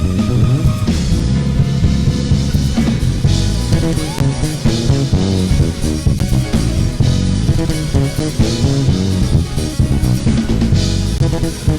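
Worship band playing an instrumental passage with drum kit, guitar and bass guitar at a steady beat.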